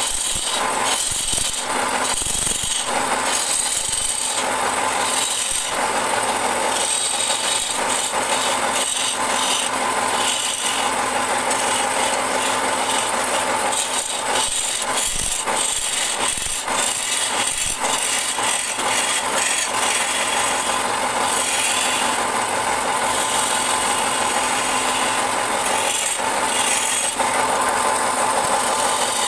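Wood lathe running with a small wooden vase spinning, and a gloved hand held against the turning wood, giving a steady dry rubbing scrape. It has a few brief breaks in the first several seconds.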